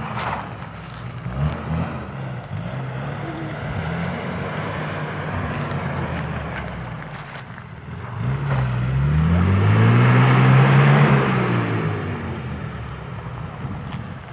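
Off-road vehicle's engine running, revving up about eight seconds in to a louder peak, then easing back down to a steady run.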